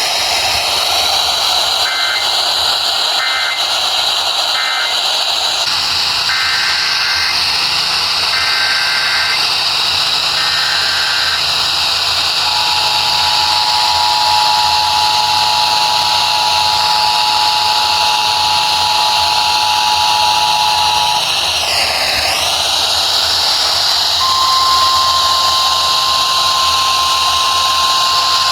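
Emergency Alert System tones over heavy radio static. First come three short warbling data bursts, the end-of-message code of the warning just read. Then three longer data bursts, the header of the next alert, and the two-tone attention signal held steady for about eight seconds. After a short break, a single steady alert tone starts and runs on, the 1050 Hz NOAA Weather Radio warning alarm.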